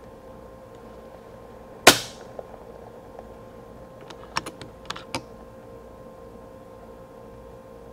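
A single shot from an FX Impact X PCP air rifle about two seconds in, with a short ring after it, followed a couple of seconds later by a quick run of small metallic clicks as the side lever is cycled to chamber the next pellet.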